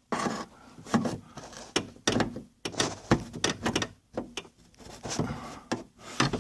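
Plastic trunk-lid trim and its push clips being pried and worked loose by hand: an irregular run of clicks, knocks and short scrapes.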